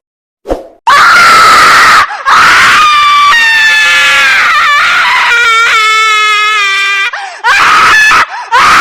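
Shrill human screaming: several long, loud screams one after another with short breaks, their high pitch wavering and gliding.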